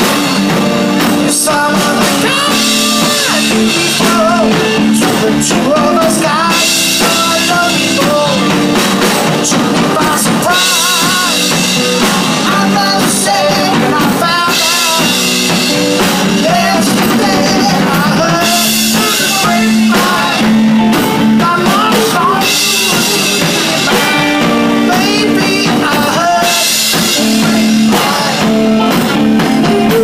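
A live band playing loudly: a man singing a wavering melody into a microphone over electric guitar and a drum kit with cymbals.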